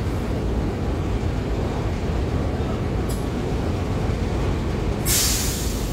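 Diesel engine of a large long-distance coach idling steadily close by, with a brief hiss about three seconds in and a loud hiss of released compressed air about five seconds in.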